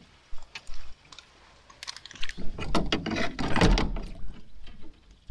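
Spinning reel being cranked, its gears ratcheting and whirring as line is wound in: a few scattered clicks at first, then a steady fast retrieve from about two seconds in until near the end.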